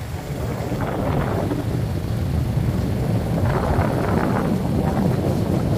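Motorbike riding along a rough road, the engine mostly buried under wind rumbling on the microphone.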